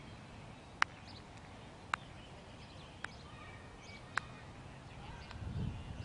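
Four sharp clicks, evenly spaced about a second apart, over open-air ambience with a few faint bird chirps. A low rumble, like wind on the microphone, builds near the end.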